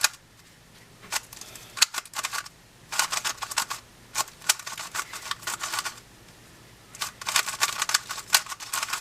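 X-Man Tornado V2 magnetic 3x3 speedcube being turned fast during a solve: runs of rapid clicking turns, with short pauses between them.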